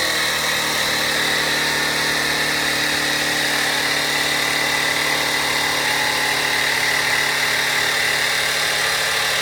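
The electric air pump of a Mr. Clear drain-clearing air gun running steadily, a whining motor drone that charges the gun's air chamber with pressure for a shot.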